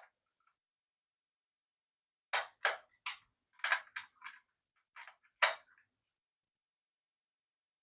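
A ground-down tent peg used as a makeshift triangular-head screwdriver, clicking and scraping against a screw in a plastic USB power adapter case: about eight short, sharp clicks in an uneven run, starting about two seconds in and stopping about halfway through.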